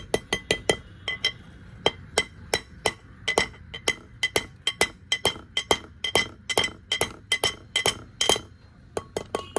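Steel hammer tapping on a socket used as a drift, driving a new 6004 pilot bearing into the centre of a flywheel: a quick run of sharp metallic clinks with a ringing tone, about three a second, with a short pause near the end.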